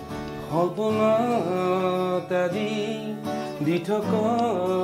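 A man singing a song while playing an acoustic guitar, with held, gliding sung notes over the guitar and a short break in the singing a little before the four-second mark.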